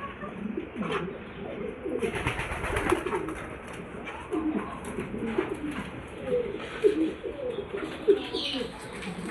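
Birds giving many short, low calls one after another, with a burst of rustling noise about two seconds in.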